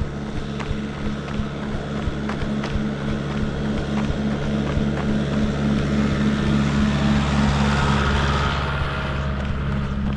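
Farm tractor engine running steadily as it approaches and passes on the road, getting louder to a peak about eight seconds in and then dropping away. A runner's footsteps tick along under it, about three a second.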